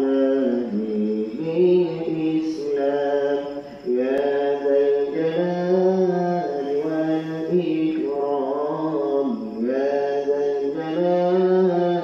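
A man chanting a zikir munajat, Islamic devotional supplication in Arabic, sung in long held phrases with sliding pitch and short breaks between them.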